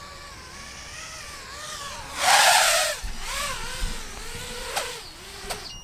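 ImpulseRC Helix five-inch FPV racing quadcopter's brushless motors and props whining, the pitch rising and falling with the throttle as it is flown in to land. About two seconds in there is a loud rushing burst lasting under a second, and the whine fades near the end.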